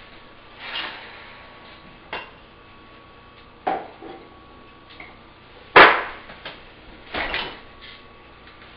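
Scattered knocks and clatters of people moving about a kitchen, including a refrigerator door being opened. The loudest knock comes a little past halfway, followed soon after by a quick double knock.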